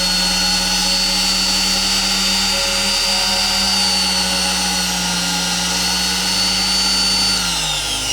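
Cheap Chinese-made trim router's motor running free with a steady high whine. It is switched off near the end and winds down, its pitch falling.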